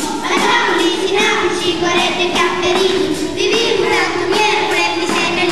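Children singing a song together with musical accompaniment.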